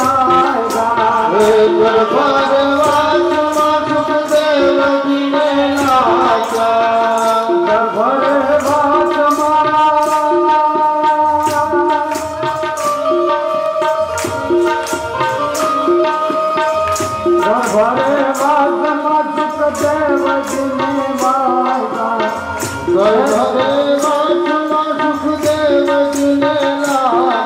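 Devotional bhajan: a group sings to tabla accompaniment, with the congregation clapping hands in a steady rhythm about twice a second.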